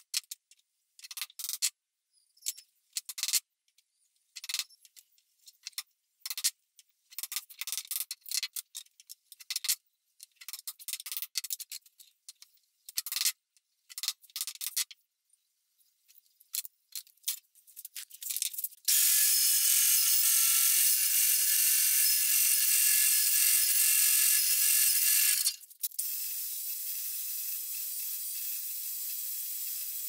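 A small hammer tapping wooden dowel pins into wooden tongs: quick, light taps in irregular runs for about fifteen seconds. Then a belt sander running against the wood: a steady hiss, loud for about six seconds, then after a brief dip continuing lower.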